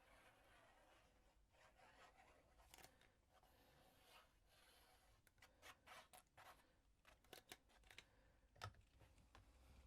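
Near silence, with faint rustling and small taps of paper and card being handled, the taps clustering from about halfway through.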